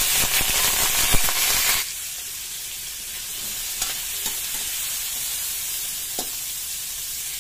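Cubes of raw pork fat sizzling in a hot wok as they start to render, loud at first and easing to a steady, quieter sizzle about two seconds in. A spatula stirring them scrapes and taps the pan a few times.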